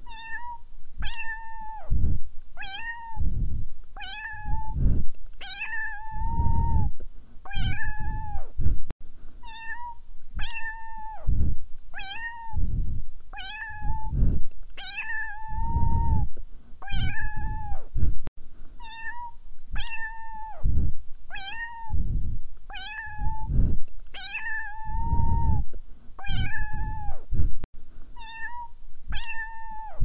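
A domestic cat meowing over and over, about one meow a second. Each call is short and holds an even pitch, and every few calls one is drawn out longer. The same run of meows repeats about every nine seconds, as a looped recording.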